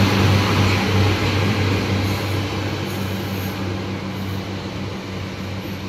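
Class 142 Pacer diesel multiple unit 142010 running away from the listener, its diesel engines giving a steady low drone that fades as the train pulls away.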